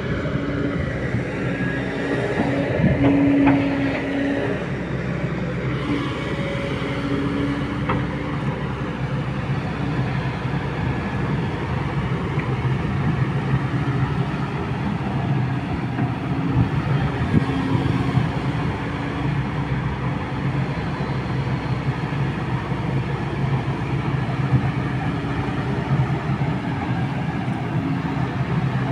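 Kobelco SK200 hydraulic excavator running: its diesel engine hums steadily and swells at intervals as the arm and bucket dig mud out of a ditch.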